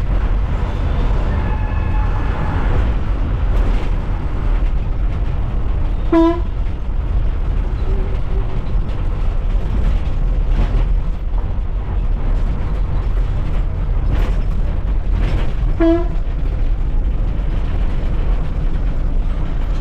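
Diesel bus engine running with a steady low cabin rumble as the bus drives through town traffic. Two short horn toots of the same pitch sound about six and sixteen seconds in, and a fainter, higher horn sounds for a couple of seconds near the start.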